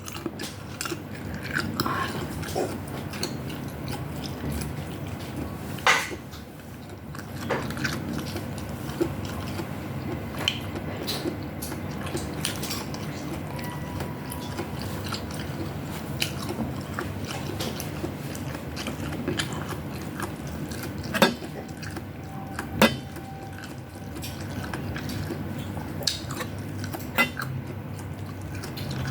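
Chewing and eating, with spoons and forks now and then clinking against plates and bowls; a few sharper clinks about six seconds in and again around twenty-one and twenty-three seconds.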